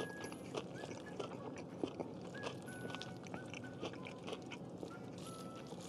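Close-miked chewing of curry-soaked nasi kandar rice: soft, irregular wet mouth clicks and smacks at low volume.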